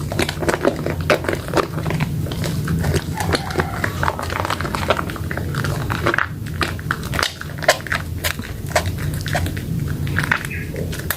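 Soaked, lathered soap squished and worked in wet hands: a dense, continuous run of wet crackles and squelchy clicks over a steady low hum.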